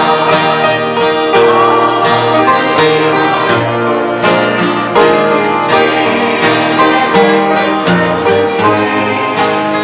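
Instruments playing a congregational hymn tune, with clear note attacks about twice a second.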